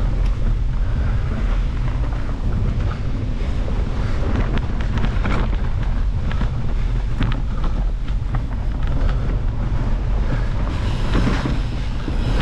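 Mountain bike riding fast along a dirt singletrack: wind buffeting the camera microphone over a steady low rumble of tyres on dirt, with scattered clicks and rattles from the bike.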